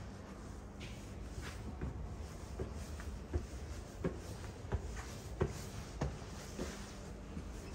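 Footsteps climbing concrete stairs, a sharp tap about every two-thirds of a second starting about a third of the way in. A faint steady hum sits underneath.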